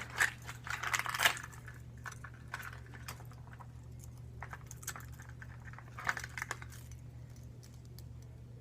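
Fishing lures and hooks clicking and clattering against the plastic of a tackle box as they are handled, in short bursts near the start, about three seconds in and about six seconds in, over a low steady hum.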